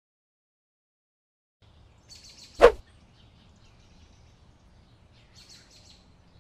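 Silence for about a second and a half, then faint outdoor ambience: a low rumble with a few high bird chirps. About two and a half seconds in comes one sudden sharp swish, the loudest sound.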